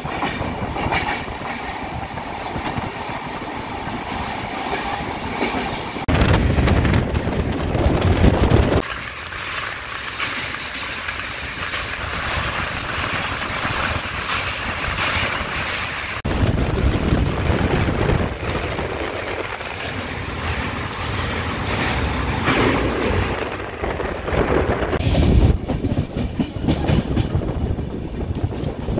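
Express passenger train running on the rails: a steady rumble with the clatter of wheels over the track. The sound changes abruptly a few times, with heavier, louder rumble for a few seconds about six seconds in and again near the end.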